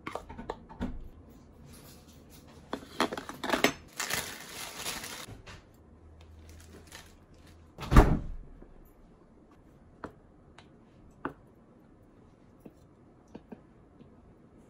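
Kitchen handling sounds: light clicks and rustles as toppings are tipped onto rice in a metal serving pan, a single heavy thump about eight seconds in, then sparse small clicks of tongs moving steak slices into a bowl.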